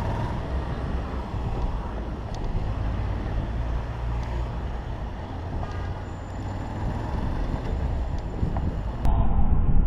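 Motorcycle riding in slow city traffic, heard from the rider's helmet camera: a steady low rumble of engine and wind on the microphone, with surrounding traffic. About nine seconds in the sound turns suddenly louder and duller.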